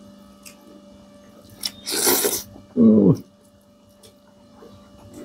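A person's non-speech vocal sound: a loud breathy burst, then a short voiced sound dropping in pitch, over a low steady hum.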